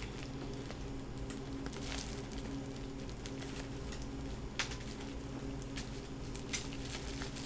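Faint rustling of a cloth drawstring bag of slate Go stones being untied and opened by hand, with a couple of short clicks in the second half, over a steady low hum.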